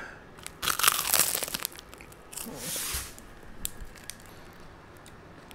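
Plastic food wrapper crinkling and rustling in a dense crackling burst, then a softer rustle about two and a half seconds in.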